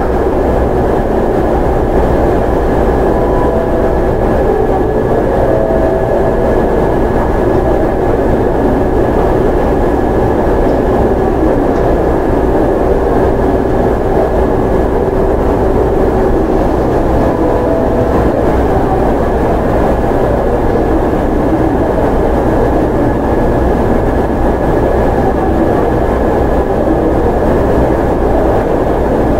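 Steady hum of a Kintetsu 8810 series electric train standing with its onboard equipment running, heard inside the car, with a constant high whine over a low drone and no wheel clatter.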